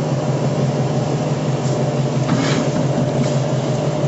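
Minced meat cooking in a little water in a frying pan on a gas burner turned up high, over a steady low hum. There is a brief scrape about two and a half seconds in.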